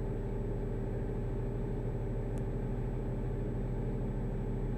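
Diamond DA50 RG's 300-horsepower, water-cooled jet-fuel piston engine running steadily at take-off power just after lift-off, a constant low drone.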